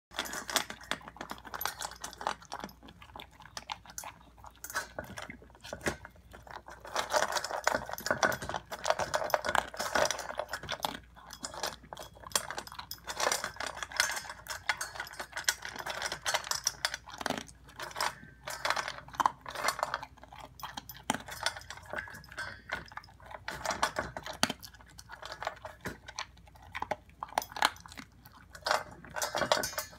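A corgi crunching dry kibble and nosing it around a stainless steel bowl, with a constant run of clicks and clinks against the metal. Toward the end the bowl is nearly empty and the dog chases the last pieces around it.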